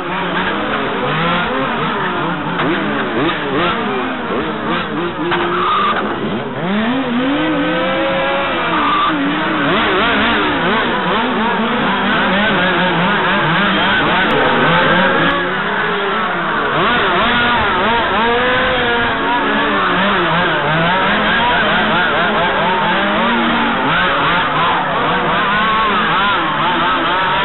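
Several 1/5-scale RC touring cars with small two-stroke petrol engines racing together, their high engine notes constantly rising and falling and overlapping as they brake and accelerate through the corners.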